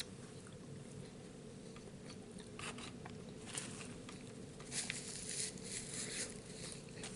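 A person chewing a mouthful of tamale, with faint small clicks and brief rustles of eating, over a steady low room hum.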